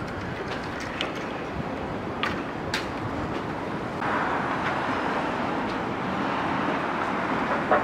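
Steady outdoor street noise with road traffic going by, a few light clicks in the first three seconds. It gets a little louder about four seconds in.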